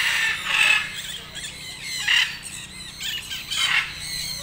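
Parrots squawking: three or so loud, harsh calls spaced a second or two apart.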